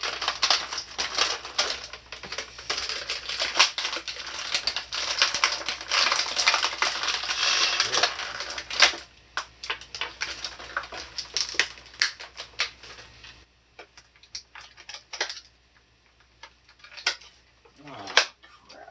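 Plastic blister packaging and cardboard being handled and pulled apart to free an action figure: dense crinkling and clicking for about the first nine seconds, then sparser clicks and taps.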